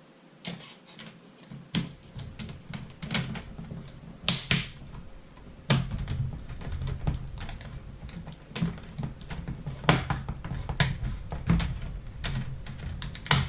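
Plastic laptop screen bezel being handled and pressed into place, giving irregular sharp clicks and snaps of plastic with a low rumble of handling underneath.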